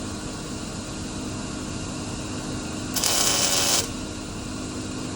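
A single short tack weld: the welding arc crackles for just under a second, about three seconds in, starting and stopping abruptly over a steady background hum.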